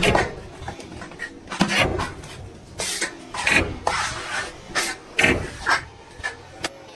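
Repeated, irregularly spaced scraping and rubbing strokes, each lasting a fraction of a second.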